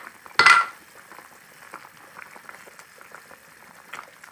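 Tofu and gendot-chilli stew in coconut milk simmering in a pan: a steady soft bubbling with many small pops. About half a second in there is one short, loud clatter.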